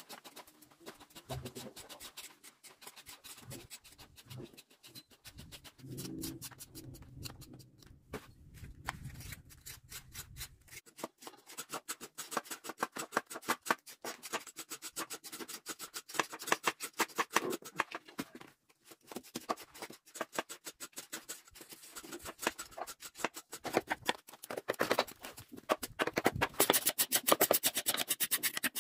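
Knives scraping and chopping the bark-like peel off cassava roots: a fast run of short, repeated scrapes. The strokes are sparse for the first ten seconds or so, then come thick and fast and grow louder toward the end.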